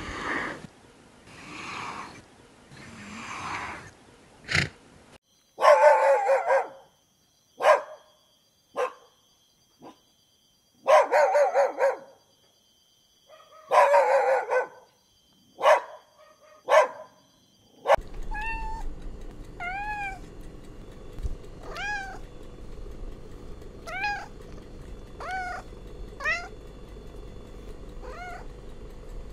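A sequence of animal calls. It opens with a giraffe's breathy, unpitched noises, then a small dog's calls, a few about a second long and several short ones. From about two-thirds of the way in, a domestic cat meows about once a second, each meow a quick rise and fall in pitch, over a steady low hum.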